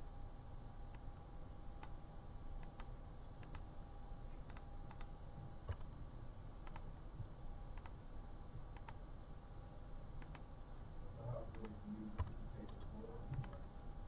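Computer mouse clicking now and then, faint and irregular, over a faint steady hum.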